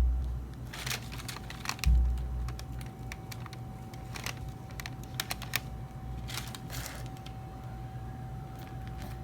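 Handling noise as sneakers and their packaging are unpacked by hand: two dull low thumps, one right at the start and one about two seconds in, then scattered light clicks and brief rustles, over a faint steady tone.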